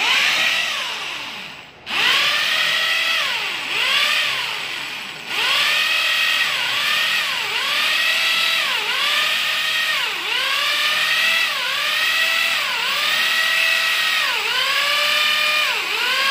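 Handheld corded electric drill boring into a wall. Its motor whine breaks off briefly about two seconds in, then repeatedly dips in pitch and recovers, roughly once a second.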